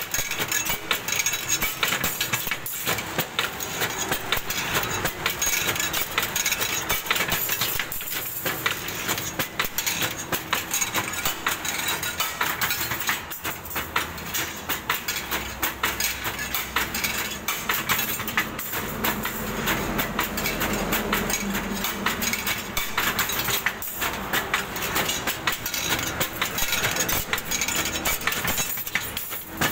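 Stirrup bending machine running, with a dense, continuous metallic clatter and rattle. A low hum comes up for a few seconds about two-thirds of the way through.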